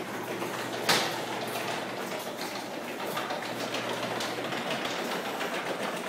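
Overhead garage door opener running and a sectional garage door rattling up its tracks as it opens, with one sharp clack about a second in. The door has a broken spring and is being pushed up by hand, so the opener is carrying it with no spring to help.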